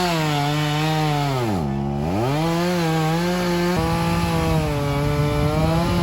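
Chainsaw cutting into a cedar tree trunk during felling: the engine's pitch drops sharply a little under two seconds in, then climbs back. From about four seconds it holds a steady pitch with a rougher, grittier sound.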